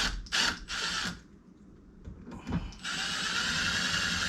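Power drill driving screws into a deadbolt lock's mounting plate: two or three short bursts about a second in, a pause, then a steady run of about a second and a half near the end.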